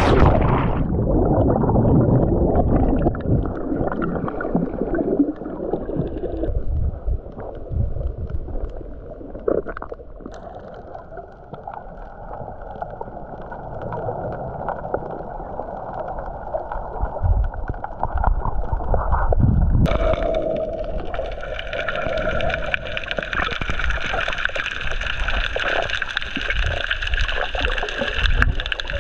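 Waterproof action camera going underwater: a splash, then muffled water and bubble sounds heard through the housing. About twenty seconds in, a steady hum of several tones comes in.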